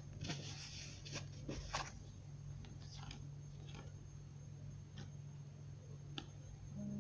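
Tarot cards being shuffled and handled: a soft papery shuffle with light card taps for about the first two seconds, then a few faint clicks as the cards are sorted in the hands, over a low steady hum.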